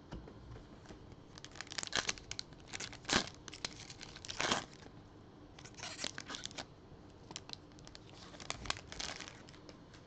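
Shiny foil wrapper of an NBA Hoops Premium Stock trading-card pack being torn open and crinkled by gloved hands: a string of irregular crackles, loudest about three and four and a half seconds in.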